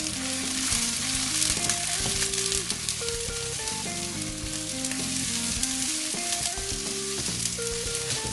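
Sliced onions and green chillies frying in hot coconut oil in a pan, a steady sizzle with stirring.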